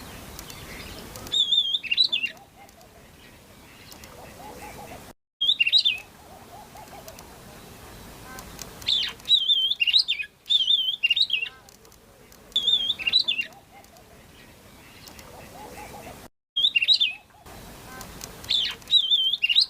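Oriental magpie-robin singing: short, high, wavering whistled phrases repeated every few seconds, about six in all, with fainter low warbling between them.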